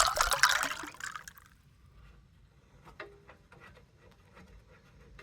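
Gasoline pouring and splashing out of a snowblower's carburetor float bowl as it is taken off. The flow stops a little over a second in, and a few light clicks of handling follow.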